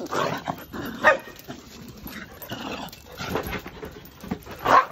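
Dogs barking during rough play, a string of short barks with the loudest about a second in and near the end.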